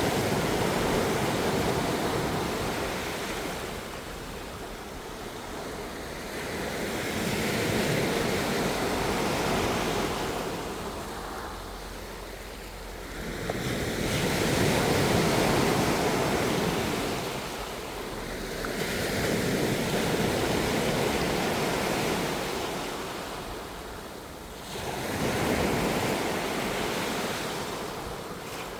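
Ocean surf: waves rushing in and washing back, swelling and fading in about five slow surges, one every five to seven seconds.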